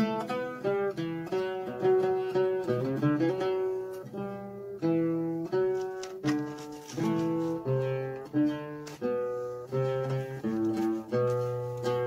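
Oud played solo: a melody of single plucked notes, each struck sharply and ringing out as it fades.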